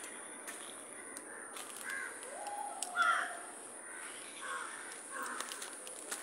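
Crows cawing, a string of short calls, the loudest about three seconds in.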